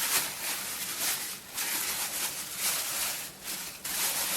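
Hands kneading a stiff dough: a rubbing, pressing noise in strokes, with short breaks about a second and a half in and again near three and a half seconds.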